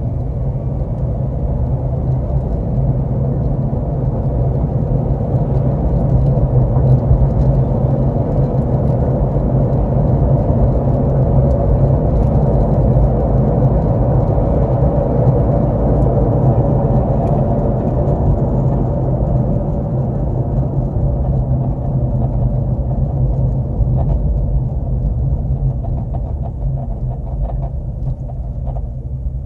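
2009 Honda Civic driving: a steady, loud rumble of road and engine noise.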